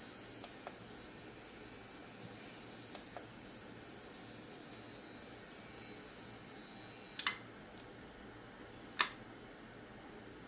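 Steady high electrical hiss from a powered coil tattoo machine that won't start: its armature gap is too wide. About seven seconds in a click cuts the hiss off, and a single sharp click follows a couple of seconds later.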